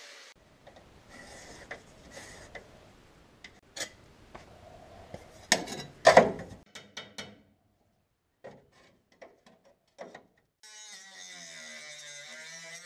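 Clanks and knocks of metal parts and hand tools being handled, the loudest pair about six seconds in. Near the end a power tool starts and keeps running, its pitch wavering.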